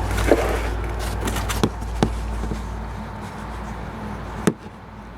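A few sharp clicks and knocks of tools being handled at the oil drain plug under the car, over a steady low hum that stops with a knock near the end.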